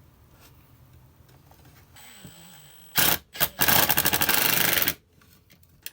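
A handheld power tool working wood: two short blips about halfway through, then a loud run of about a second and a half with a fast, even rattle that cuts off abruptly.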